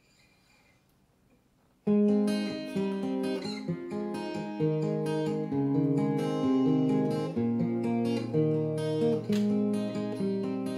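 Acoustic guitar starting suddenly about two seconds in after near silence, then playing a run of picked notes that ring over one another.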